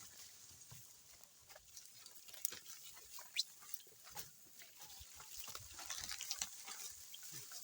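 Team of oxen pulling a plough through soil, heard faintly as scattered short clicks and rustles.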